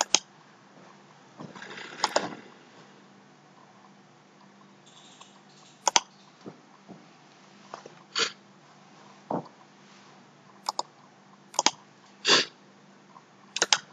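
Scattered single clicks and taps of a computer mouse and keyboard, about nine spread over the seconds, with a brief soft rustle near the start.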